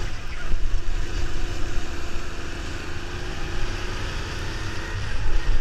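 Go-kart engine running steadily at speed, heard from the driver's seat, with heavy wind buffeting on the microphone.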